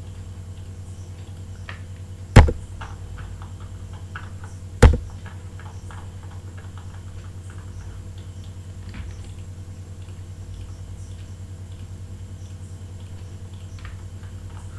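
Computer mouse clicking: two loud, sharp clicks about two and a half seconds apart, with fainter clicks between them and a few more later. A steady low electrical hum runs underneath.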